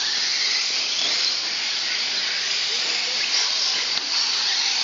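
Radio-controlled short course trucks racing on a dirt track: a steady high hiss from their motors and tyres, with no distinct engine note.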